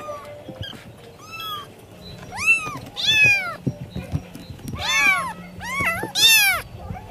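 Cat meowing: about six short, high mews, each rising then falling in pitch, most of them in quick pairs.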